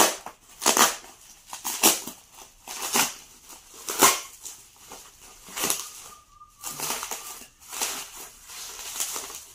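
Bubble-wrap packaging being handled and pulled open: repeated bursts of plastic crinkling and rustling, a burst every second or so.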